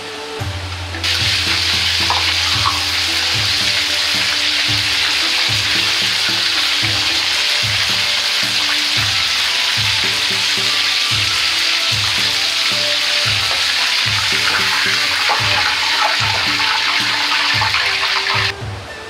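Gyoza deep-frying in hot oil in a wok, a loud steady sizzle that starts suddenly about a second in. The sizzle cuts off near the end, as the browned dumplings are lifted out of the oil.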